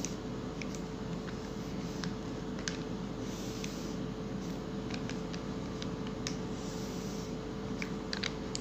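Handwriting with a pen: sparse faint taps and scratches over a steady hum with a constant tone.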